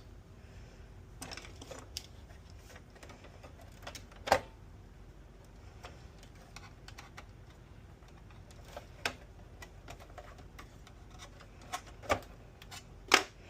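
Scattered clicks and light knocks from a PS5's plastic and metal parts being handled as it is taken apart to pull the motherboard. They are irregular, with the loudest about four seconds in and two more near the end.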